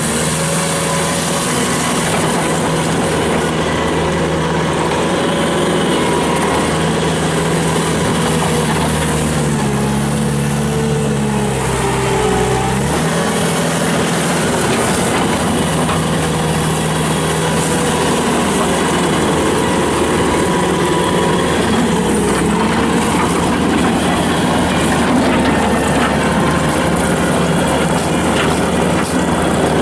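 Bobcat T300 rubber-track skid steer's Kubota turbo diesel running loud and steady while the machine is operated, its engine note shifting up and down in pitch about ten to thirteen seconds in.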